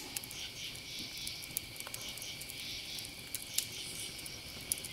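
Quiet eating: faint scattered clicks and crinkles from hands handling MRE food and wrappers, and chewing, over a steady high hiss.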